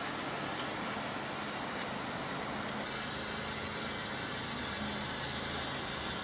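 O gauge model diesel locomotive running on a garden railway: a steady low engine-like hum over an even outdoor background noise, which changes abruptly about three seconds in.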